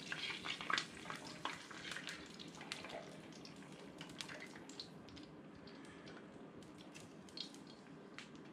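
Batter being poured into hot oil, sizzling and crackling with scattered pops. The crackling is busiest in the first few seconds and thins out after.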